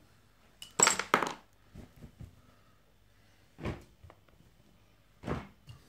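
A few short knocks and rustles of things being moved about by hand, spaced a second or two apart, the loudest about a second in.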